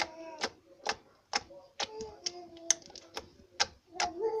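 Red slime being slapped and pressed by hand on a tabletop, making sharp sticky smacks about twice a second. A child's voice hums or sings between the smacks.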